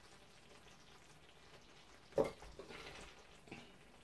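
Metal ladle scooping tikka sauce from a ceramic dish and spooning it onto rice, with one sharp clink about two seconds in and a few softer knocks after.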